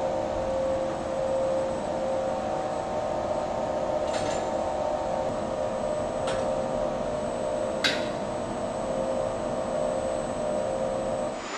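Steady hum of production machinery in an assembly room, with three sharp metallic clicks of parts being handled in an assembly fixture, the loudest near the end.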